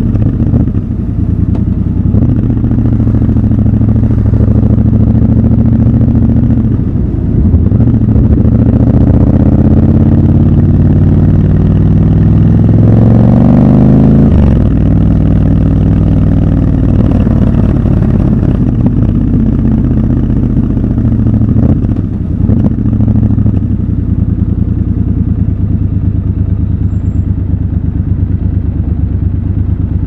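Triumph Scrambler 1200 XC's 1200 cc parallel-twin engine under way in traffic, heard from the rider's seat. Its pitch climbs steadily for several seconds as it accelerates, drops sharply about halfway through, and then settles to steadier running.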